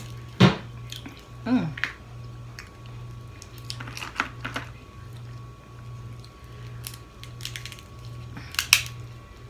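Steamed blue crab shell being cracked and picked apart by hand: a few sharp cracks and snaps, the loudest about half a second in, a cluster in the middle and another near the end, with chewing between them. A low hum pulses steadily underneath.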